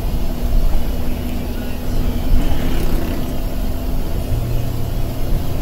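Intercity bus heard from inside the cabin while driving: a steady engine drone over low road rumble, with a lower engine note coming in about four seconds in.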